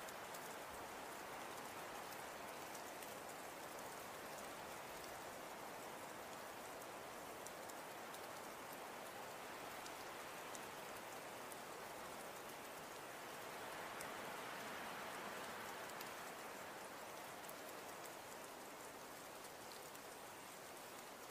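Steady soft hiss of falling precipitation with faint scattered ticks, like wet snow and sleet pattering down. It swells a little about two-thirds of the way through.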